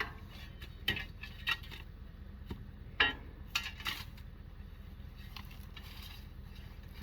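Several sharp metallic clanks and knocks from the boat trailer and its hoisting gear, the loudest about three seconds in, over a steady low rumble of the tow vehicle's engine.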